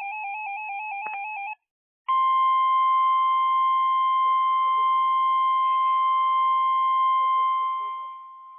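Emergency weather alert tones: a short warbling electronic tone flipping rapidly between two pitches for about a second and a half, then, after a brief break, a loud steady single-pitch alarm tone near 1050 Hz, like the NOAA Weather Radio warning alarm, held for about six seconds and fading near the end. The tones signal that a warning is about to be read.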